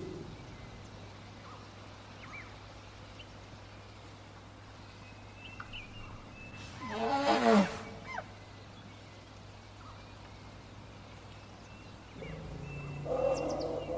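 African elephant calling: one loud, rough call of about a second, falling in pitch, midway through, over a faint steady background with scattered small bird chirps. Another low, pitched animal sound starts near the end.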